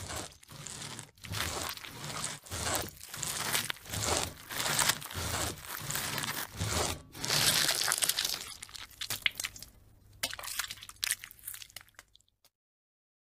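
Film sound effects of crunching and tearing over a black screen, an irregular run of noisy strokes with dull low thuds beneath, stopping abruptly about twelve seconds in.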